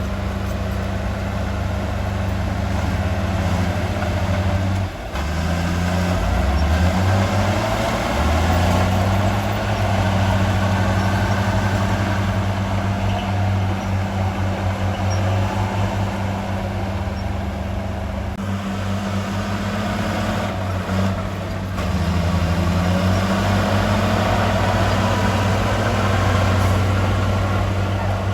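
Heavy diesel engine of earthmoving machinery running steadily, its pitch rising and falling several times as it revs up and down.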